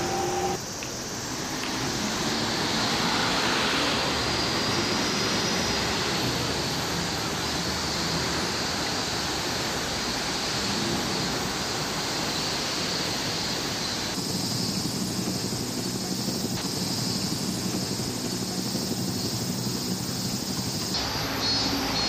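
Steady city street ambience: continuous traffic noise from a busy avenue with a low engine hum underneath.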